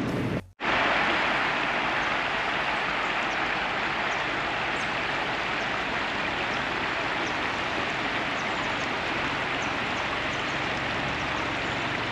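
Steady rushing noise with no pitch or rhythm, starting after a brief drop-out about half a second in.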